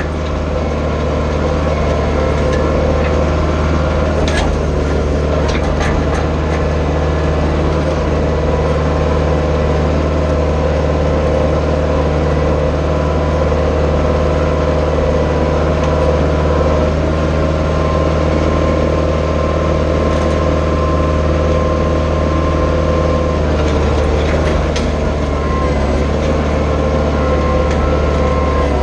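Branson 4520 compact tractor's diesel engine running steadily while the tractor drags a rear box blade through dirt. A few short knocks sound about four to six seconds in and again near the end.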